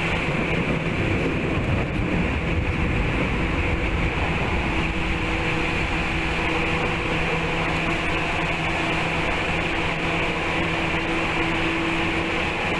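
Tokyu 8500 series electric train running at speed, heard inside the carriage: a steady rumble of wheels on rail with a faint, even hum from the drive.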